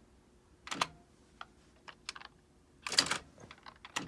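Electronic typewriter being typed on slowly: light key clicks, with two louder clattering strikes of the print mechanism about a second in and about three seconds in, then a quick run of small clicks near the end.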